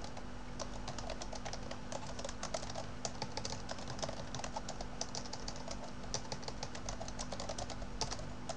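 Typing on a computer keyboard: quick, irregular runs of keystroke clicks, several a second, over a faint steady hum.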